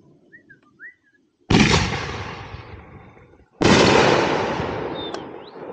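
Two loud firework explosions about two seconds apart, each with a sharp bang that trails off over a couple of seconds. A few faint short chirps come just before the first bang and near the end.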